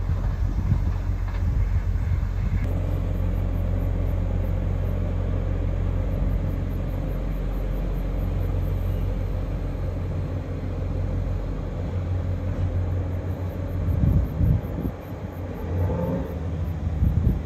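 Steady low drone of a JR Kyushu YC-1 series hybrid railcar's diesel generator idling at the platform, with a stack of even engine tones over the hum. It swells louder in a few passages near the end.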